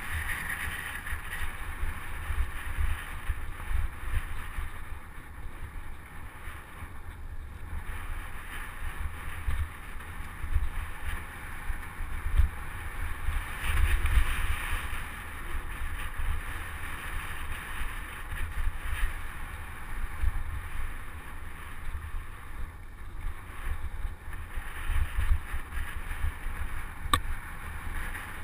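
Wind buffeting a bike-mounted camera's microphone while a mountain bike rides fast over a dirt road, with a steady uneven rumble and the hiss of tyres on dirt.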